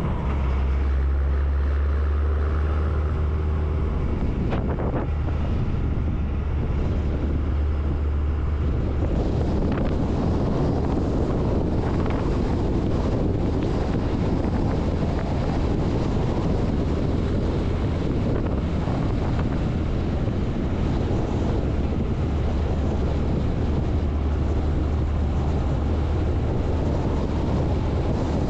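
Wind rushing over the microphone of a cab-mounted camera on a moving MAN LE 280 B 4x4 truck, over the low drone of its diesel engine. A steady, unbroken noise.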